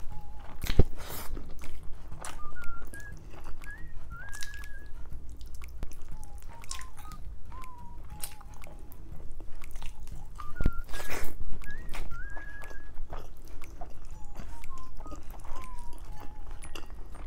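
Close-miked eating sounds from boiled pork leg: chewing and lip smacking with sharp mouth clicks, a knock about a second in and a louder noisy burst around eleven seconds. Under it, a faint melody of short whistle-like notes repeats about every seven seconds.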